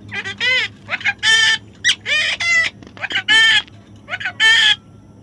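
Parrot squawking over and over, about once a second: each call is a short gliding note followed by a longer, harsh, raspy squawk.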